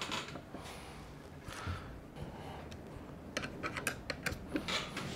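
Small metal parts clicking and tapping as a screw and tapered washer are fitted to an electric skateboard's steering knuckle by hand, with a quick run of sharp ticks a little over three seconds in as a hex driver is set into the screw.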